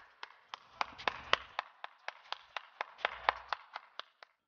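One person clapping their hands at a steady, even pace, about four claps a second, stopping shortly before the end.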